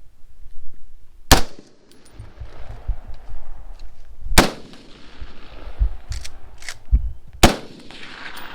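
Three gunshots about three seconds apart, each followed by a long echo rolling back across the range, with a few fainter sharp knocks between the second and third shots.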